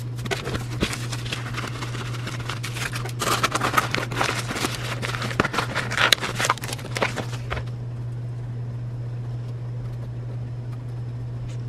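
Plastic packaging crinkling and rustling, with many small sharp clicks, as bracelets go into a small plastic bag and a pink bubble mailer is handled and pressed flat. The crinkling stops about two thirds of the way through, leaving a steady low hum.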